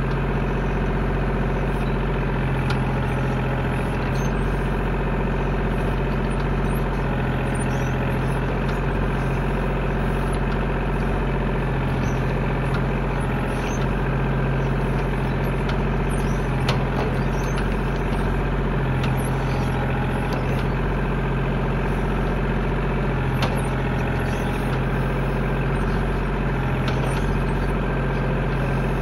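Tractor engine running at a steady speed, with a few brief light knocks over the top.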